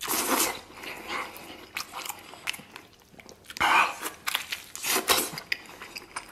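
A person biting into and chewing a whole braised pork knuckle held in the hands, tearing off tender skin and meat. The eating sounds come in uneven bursts, with the loudest bites at the start and again about four and five seconds in.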